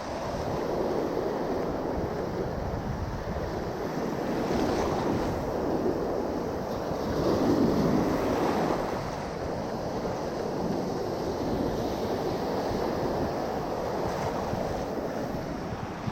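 Gulf surf washing around a sandbar, with wind buffeting the microphone. The wash swells about four seconds in and again, louder, around the middle.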